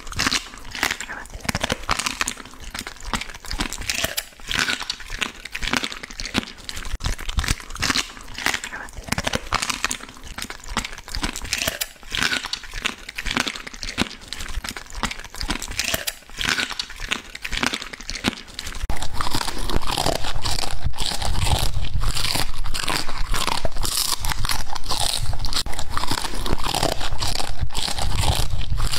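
A dog chewing and crunching meat on the bone, a dense run of crisp crunches that grows louder and heavier in the second half.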